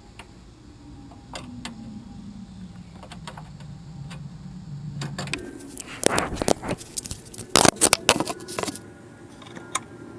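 Small metal hardware clinking and rattling, a dense run of sharp clinks about six to nine seconds in, as bolts, nuts and a mounting bracket are handled and fitted for the new horn. A faint low hum slowly sinks in pitch during the first half.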